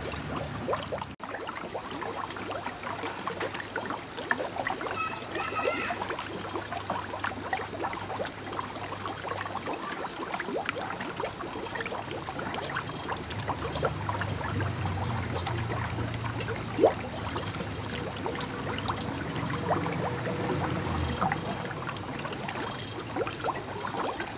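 Air from a converted refrigerator compressor bubbling up through ore slurry in a bucket froth-flotation cell: a dense crackling gurgle of frothing bubbles, with a low hum underneath and one louder pop about two-thirds of the way through.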